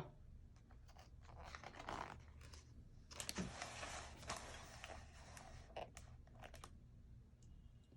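Faint paper rustling with a few light clicks, like a book's page being handled and turned, over quiet room tone.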